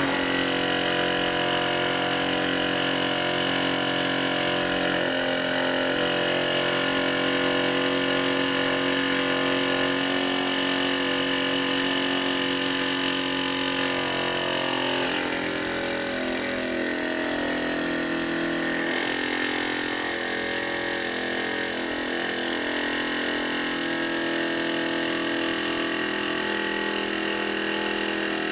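Pneumatic air hammer (air chisel) running steadily without pause, driving a copper ground rod into the ground through a 3/4-inch socket fitted over the rod's end.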